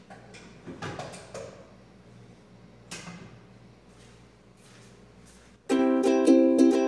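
A few light knocks and clatters of kitchenware being handled over faint room noise. Near the end, much louder background music with a plucked string instrument starts abruptly.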